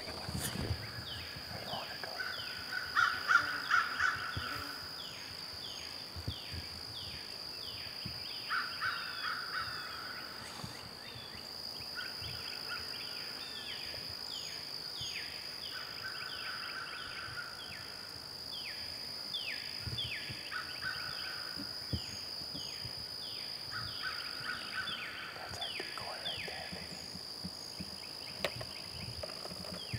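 Wild turkey hen putting in short bouts every few seconds, the loudest about three seconds in: alarm putts of a spooked hen. Behind it runs a steady high-pitched chorus of rapid, repeated chirps.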